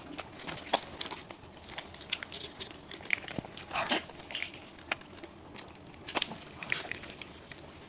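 Crisp, flaky pastry crust of a custard-filled bun crunching and crackling in close-up as it is bitten and pulled apart, with many sharp little cracks as the crust breaks into crumbs.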